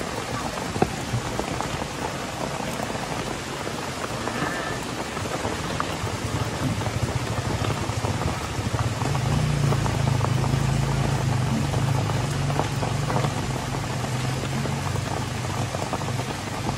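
Heavy rain falling on a tricycle sidecar's metal roof and plastic tarpaulin, heard from inside the sidecar as a steady hiss. A low steady hum joins about seven seconds in.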